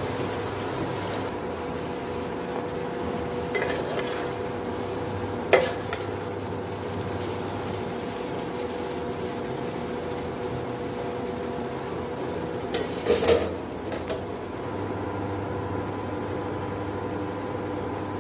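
A spoon stirring diced potatoes in a steel frying pan, knocking against the pan in a few sharp clinks, the loudest about five and a half seconds in and a short cluster around thirteen seconds. Under it runs the steady hum of an induction cooktop.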